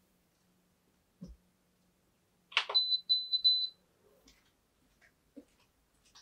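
A white enamel saucepan clatters as it is set down on a two-burner electric cooktop. A quick run of short, high electronic beeps follows, as the cooktop is switched on. A light thump comes about a second in, and faint clicks near the end.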